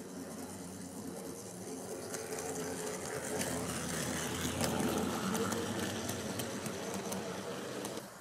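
Tenshodo HO-scale DF50 model diesel locomotive and its train running past close by: a steady small-motor hum with quick clicking of wheels on the track. It grows loudest about four to five seconds in as the train passes, then drops suddenly near the end.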